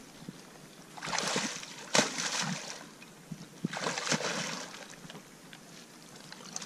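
A person in waders sloshing and splashing through shallow water among broken pond ice, in several bursts, with a sharp knock about two seconds in.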